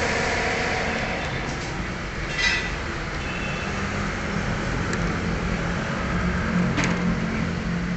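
Steady low rumble of a motor vehicle running nearby, with a low hum from about three seconds in and a couple of short clicks.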